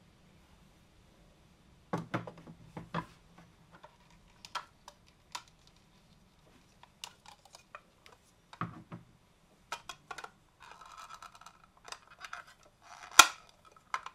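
Hands handling the plastic parts and wrapping of a stand-mixer shave ice attachment on a table. Starting about two seconds in there are scattered taps and clicks of hard plastic and short bursts of plastic crinkling, with one sharp snap near the end as the loudest sound.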